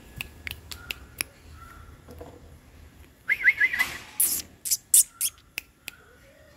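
Birds chirping: scattered short, sharp chirps, a quick run of rapid chirps about three seconds in, and louder chirps over the following two seconds.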